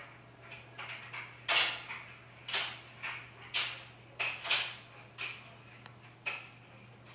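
About ten short, sharp kissing and clicking noises made with a person's mouth to call a cat, spaced irregularly half a second to a second apart, the loudest about a third and two-thirds of the way through.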